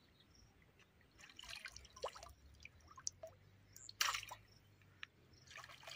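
Faint, scattered drips and small splashes of water, with one louder splash about four seconds in.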